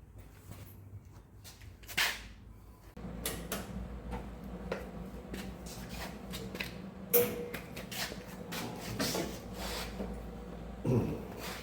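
Knocks and clatter of objects being handled, the loudest about two, seven and eleven seconds in, over a steady low hum that sets in about three seconds in.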